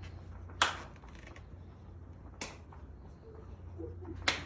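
Three single hand claps, a little under two seconds apart, each a cue for the listeners to perform a simulated motor tic.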